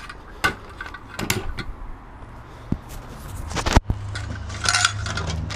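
Metal exhaust pipe and silencer pieces clinking and knocking together as they are handled, with a few sharp knocks, the loudest a little under four seconds in.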